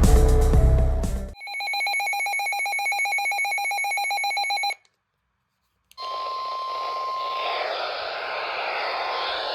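The end of a music track gives way to a rapidly pulsing electronic buzzer alarm for about three seconds. After a second of silence comes a NOAA Weather Radio warning alarm tone: a steady high tone over radio static, which drops out for about two seconds and comes back.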